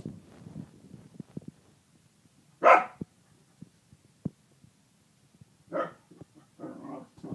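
Kerry Blue terrier barking: one sharp bark about two and a half seconds in, a second about six seconds in, then softer vocal sounds near the end. A few light taps on the wooden floor fall between the barks.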